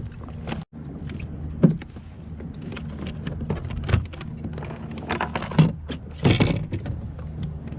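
Scattered knocks and clicks over a steady low hum, with a brief dropout about a second in.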